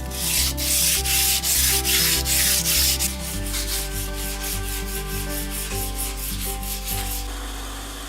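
Marking knife blade rubbed back and forth on sandpaper to flatten it: rhythmic scraping strokes, quickening after about three seconds and stopping shortly before the end.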